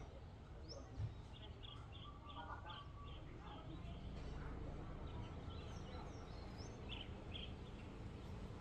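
Faint outdoor ambience: small birds chirping, with a quick run of short chirps about four or five a second starting about a second in, then scattered higher chirps, over a low steady background rumble. A soft knock about a second in.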